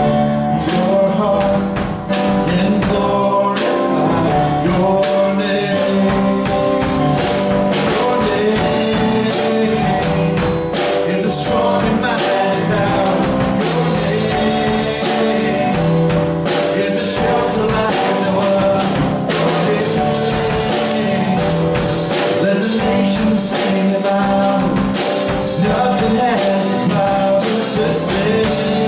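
Live worship song: a man singing with an electric keyboard and a drum kit keeping a steady beat.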